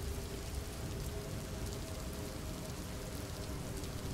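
Steady rain falling on a surface.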